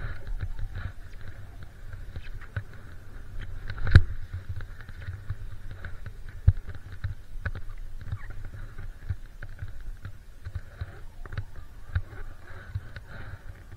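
Skis running through powder snow, with wind rumbling on the camera microphone and a few sharp knocks, the loudest about four seconds in and another about six and a half seconds in.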